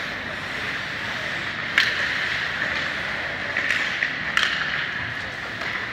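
Ice hockey rink game sound: a steady hiss of skates and play on the ice, broken by sharp clacks of sticks and puck, the loudest about two seconds in and another a little past four seconds.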